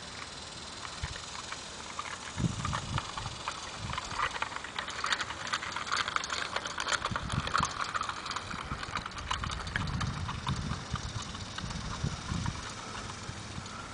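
Irregular light clicks and taps from a small child's bicycle rolling over a concrete sidewalk, with the steps of someone walking alongside, densest in the middle. A few low thumps run under them.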